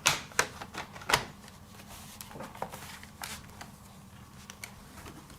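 Lenovo Z50 laptop's plastic back cover being fitted and pressed into place: a few sharp plastic clicks and knocks in the first second or so, then fainter scattered taps.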